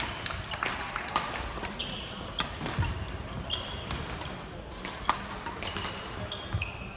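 Badminton doubles rally: sharp racket strikes on the shuttlecock and footfalls on a wooden court, with short high squeaks of court shoes, a few times.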